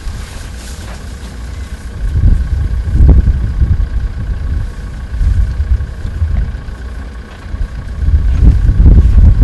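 Open safari vehicle's engine running, rising in low rumbling surges three times: about two seconds in, around five seconds, and again near the end.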